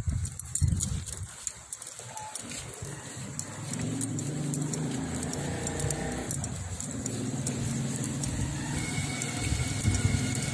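A vehicle engine running at a steady idle, a low even hum that comes in a few seconds in and holds. Before it, irregular low thumps of a handheld phone being jostled while walking.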